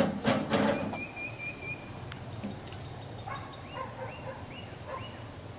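A short, loud rattling burst right at the start, then small birds chirping with a repeated high trill.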